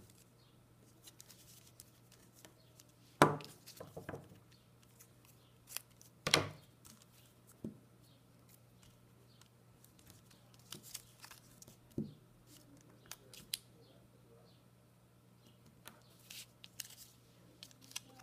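Handling of paper scraps and a glue stick at a table: light rustles and taps of paper being picked up and pressed down, with two sharper knocks about three and six seconds in. A faint steady hum runs underneath.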